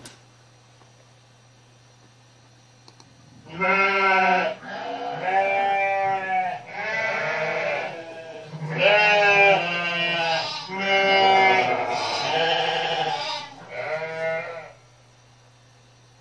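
Bleating farm-animal sound effect played from a computer: about six wavering calls, each a second or so long, over a steady low hum.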